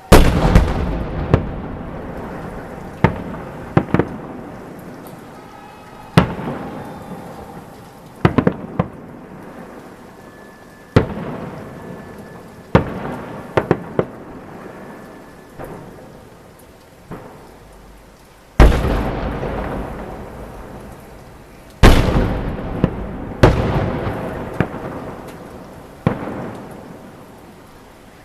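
Fireworks salute: heavy shells bursting overhead at irregular intervals, each deep boom rolling away in a long echoing rumble, with the loudest bursts at the start and about two-thirds of the way through.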